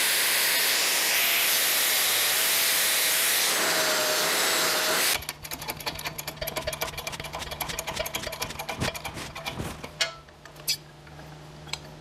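Angle grinder running against 3/16-inch steel plate, a loud steady grind. About five seconds in it gives way to a quieter string of rapid clicks and creaks over a low steady hum, from a hydraulic bottle-jack shop press being pumped to bend the plate.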